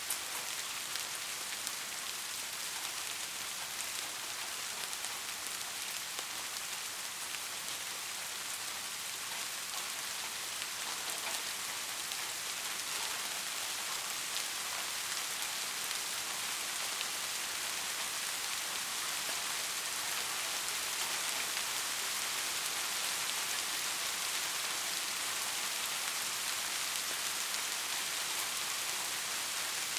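Steady rain: a dense, even hiss of falling rain with the fine patter of individual drops, no thunder.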